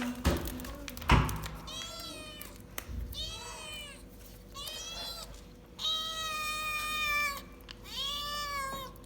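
Domestic cat eating a treat and making four drawn-out, arching meow-like calls through its food, the third one the longest. Two sharp knocks sound about a second in, the second one loudest.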